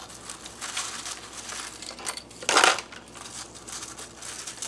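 Foil Mylar bag crinkling as it is handled, with dry rustles of freeze-dried stir fry being picked up and dropped into it. One louder crinkle comes about halfway through.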